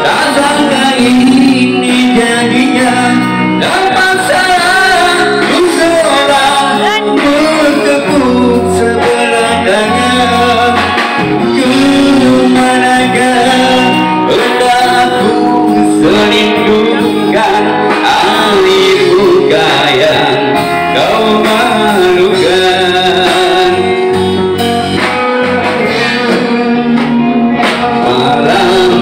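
Live band playing a song: a man singing through a microphone over amplified electric guitars and drums, loud and continuous.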